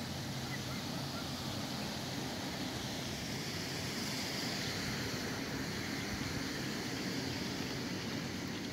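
Steady outdoor background noise, an even hiss and low rumble with no distinct events.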